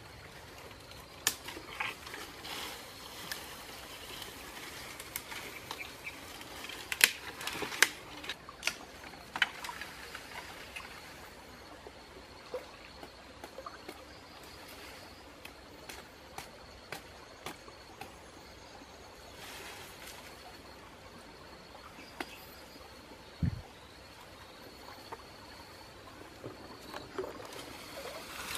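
Dry branches and twigs snapping and cracking, with leaves rustling, as a person climbs over a pile of fallen trees; sharp snaps come irregularly, loudest about a quarter of the way in. A faint steady insect buzz sits underneath.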